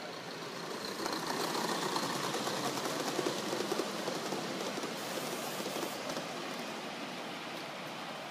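Gauge 1 model train running past on the track, its wheels making a steady running noise on the rails that swells about a second in and slowly fades as the train moves away.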